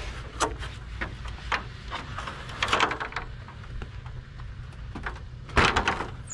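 A step ladder being carried and stood up against a light aircraft's wing: a series of knocks and clatters, a cluster in the middle and the loudest near the end, over a low steady rumble.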